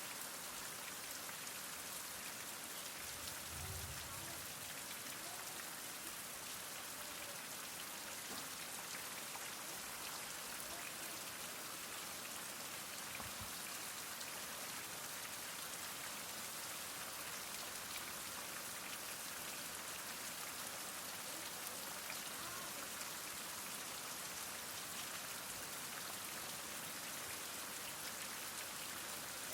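Heavy rain falling steadily, a dense even hiss of drops on surfaces, with a brief low rumble about three seconds in.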